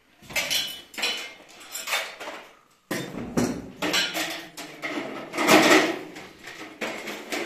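Metal clattering and clanking in an irregular run of knocks and rattles, with a brief break about three seconds in and the loudest clatter a little past the middle.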